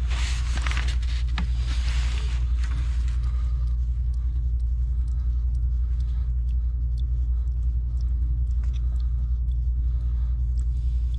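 A steady low rumble throughout. In the first two seconds or so there is a scratchy brushing and rustling, then a few light clicks, as a can-lid dauber works purple primer onto the PVC pipe ends.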